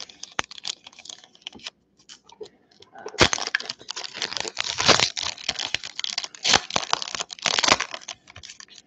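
A foil booster-pack wrapper crinkling in the hands, then torn open about three seconds in, with a long run of crackling foil.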